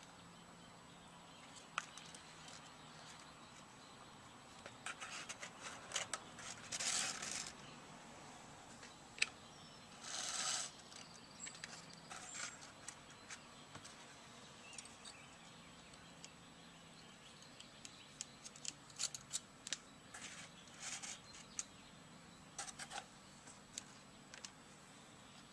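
Handling noise from reconing a subwoofer: scattered small clicks and short rustles and scrapes as hands work the paper cone, spider and tinsel leads into the basket, with a faint steady hum underneath.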